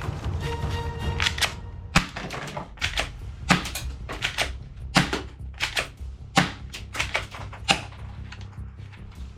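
Plastic toy guns clicking and snapping: a run of sharp mechanical clicks, with louder snaps about every second and a half, over a low steady background.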